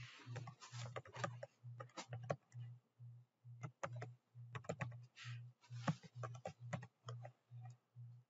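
Computer keyboard typing in short, irregular runs of keystrokes as login details are entered. Under it, a faint low hum pulses on and off about three times a second.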